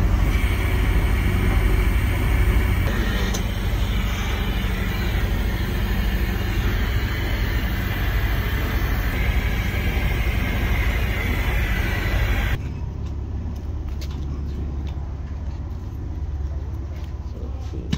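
Motorized roller machine running steadily as a felt sewer pipe liner is fed through it, a loud hum with hiss. About twelve seconds in the noise drops abruptly to a quieter, steady low engine rumble.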